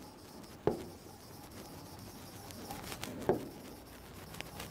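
Marker writing on a board: faint scratching strokes, with two short clicks, one about a second in and one a little past the middle.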